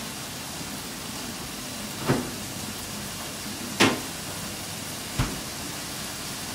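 Food frying in a pan on the hob with a steady hiss, broken by three knocks of things handled in the kitchen: two sharp ones about two and four seconds in, and a duller thump a little after five seconds.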